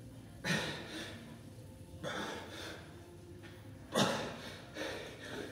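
A man breathing hard during one-arm kettlebell presses: four sharp, forceful breaths, about one per press.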